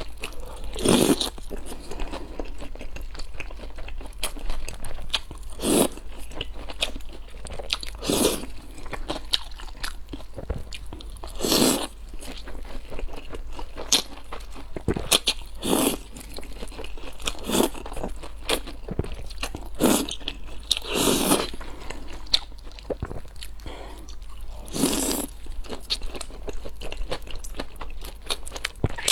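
Close-miked eating sounds: loud crunchy bites every few seconds, with wet chewing and mouth clicks in between.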